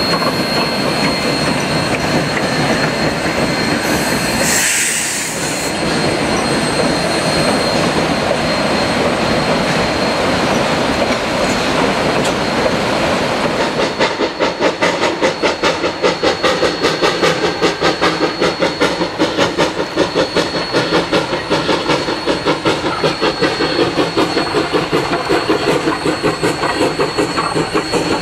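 A train running: a steady dense rumble with a thin high tone over it, turning about halfway through into a fast, even beat of roughly three strokes a second.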